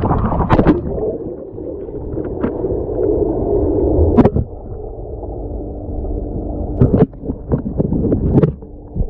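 Pool water heard through a submerged camera: muffled gurgling and sloshing with a few sharp splashes and pops from swimming strokes. A low steady hum comes in about two-thirds of the way through.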